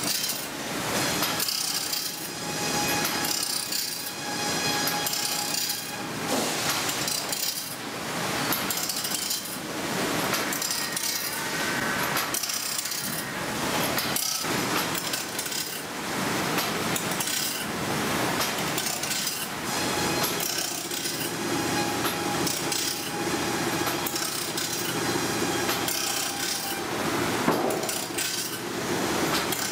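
Automatic bandsaw blade sharpener grinding the teeth of a wide band-mill blade: the abrasive wheel rasps against each tooth in a cycle that repeats about every two seconds, with knocks from the mechanism as the blade is indexed on.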